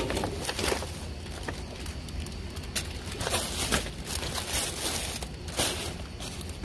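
Plastic bags and cellophane wrapping crinkling and rustling in irregular bursts as a hand digs through a dumpster's contents.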